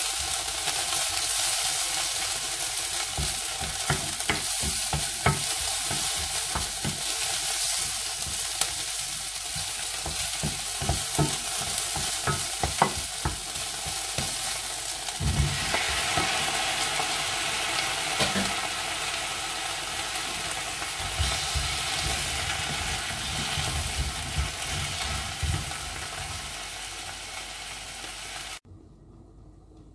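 Sliced onion and shrimp sizzling in a hot nonstick frying pan, stirred with a wooden spatula that clicks and scrapes against the pan. About halfway through, cut okra pieces are tipped into the pan and the frying and stirring go on. The sound drops away abruptly near the end.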